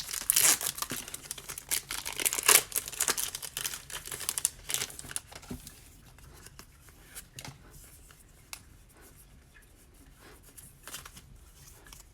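Pokémon TCG booster pack wrapper being torn open and crinkled, with dense crackling for about five seconds; after that it goes much quieter, with only a few soft taps and rustles.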